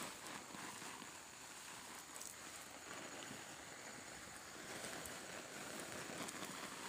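Faint steady hiss of water spraying from the end of a plastic garden hose in a fine, rain-like mist onto potting soil, rather than a strong jet.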